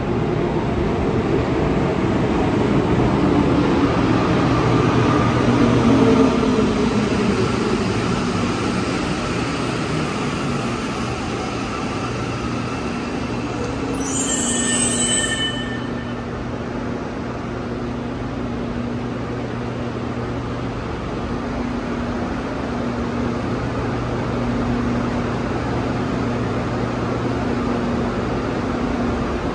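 Rubber-tyred metro train braking into a station, its motor whine falling in pitch over the first several seconds. It then stands with a steady low hum from its onboard equipment. A brief high-pitched sound cuts in about halfway through.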